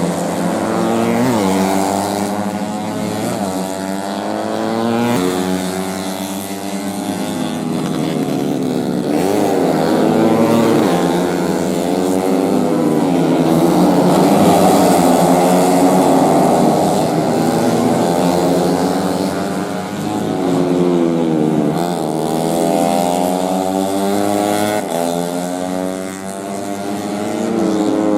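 Several four-stroke underbone racing motorcycles running hard together. Their engine notes overlap, each rising and falling in pitch with throttle and gear changes.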